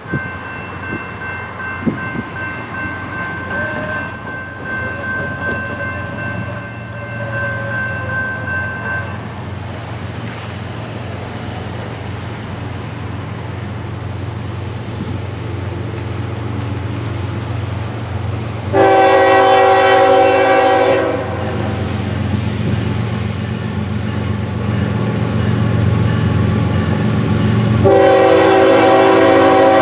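Horn of a Norfolk Southern GE ES44AC diesel locomotive sounding as the train approaches: a long, fainter blast early on, then a loud two-second blast about two-thirds of the way through and another loud blast starting near the end. Under it the low rumble of the locomotive and train grows steadily louder as it draws near.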